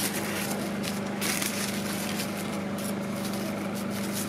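Street-food stall noise: a steady low hum under an irregular crackling hiss.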